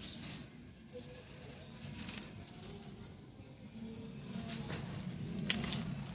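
Rustling and handling noises as foliage and garden things are moved, with one sharp click about five and a half seconds in.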